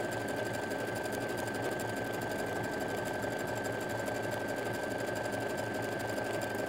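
Electric sewing machine running steadily while stitching a decorative blanket stitch: a rapid, even chatter of needle strokes over a steady high whine.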